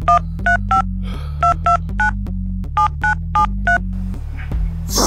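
Phone keypad dialing a number: about ten short two-tone DTMF beeps in quick, uneven succession. A low, rhythmic music bed runs underneath, and a brief rush of noise comes near the end.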